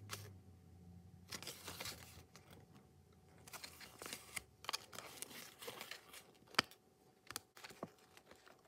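Faint rustling and crinkling of a folded paper collector's guide being unfolded and handled, with a few small sharp clicks in the second half.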